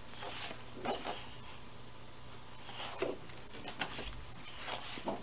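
Sheets of 12x12 scrapbook cardstock paper being handled and slid over one another: a few short, soft rustles and sliding sounds as a sheet is lifted and turned.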